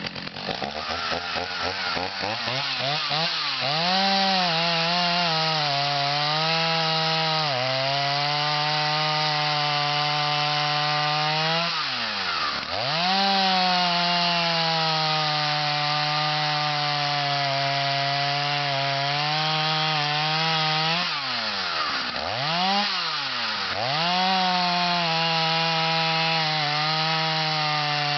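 Stihl 029 Super two-stroke chainsaw, freshly rebuilt after a scored cylinder, revving up from idle and running at high speed, cutting wood. It drops back toward idle twice, about twelve and twenty-two seconds in, then throttles up again.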